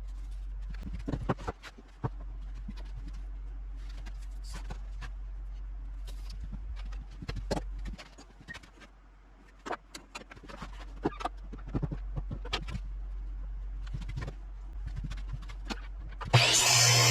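Welding on a steel trailer frame: a steady low electrical hum with scattered clicks and taps of metal being handled, then a loud crackling welding arc strikes up near the end.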